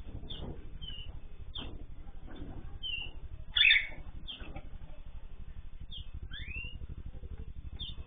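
Cage birds in an aviary chirping, with short high chirps throughout, one loud harsh call about three and a half seconds in and a rising whistled note near six seconds, over a steady low hum.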